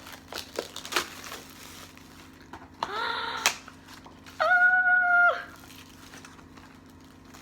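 Packaging crinkling and clicking as a wrapped item is handled, then two high wordless squeals from a person, the second held steady for about a second.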